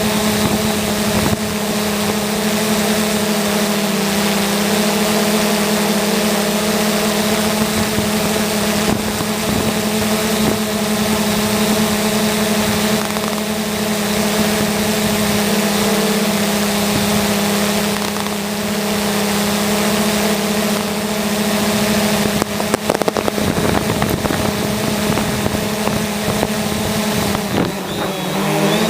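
3DR Solo quadcopter's propellers and motors humming steadily as it flies, with a short cluster of cracks and knocks about 23 seconds in and a change in the motors' pitch near the end.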